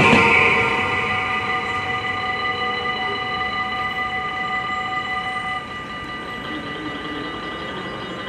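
Dutch level-crossing warning bells ringing steadily while the noise of a departing train fades in the first second. About five and a half seconds in the sound drops a step as part of the ringing stops, and fainter ringing carries on.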